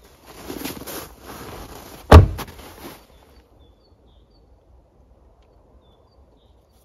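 Rustling and handling noise with one loud, sharp thump about two seconds in, then quiet with a few faint, brief high chirps.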